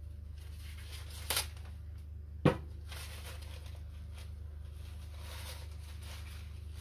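A short scrape about a second in and a single sharp knock about two and a half seconds in, with faint rustling after, over a steady low hum.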